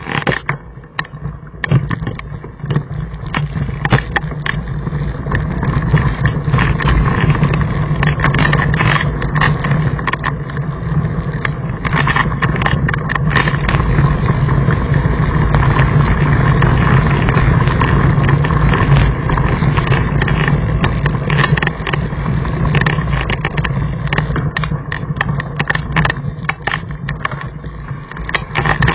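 Mountain bike riding over a loose gravel and rock trail, heard from a camera mounted on the bike: a continuous rumble of knobby tyres on stones with frequent sharp knocks and rattles from the bike.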